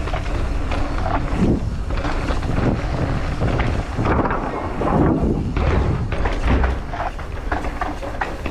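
Mountain bike riding down a rough dirt track: tyres rumbling over the ground and the bike knocking and rattling irregularly over bumps, with wind buffeting the microphone.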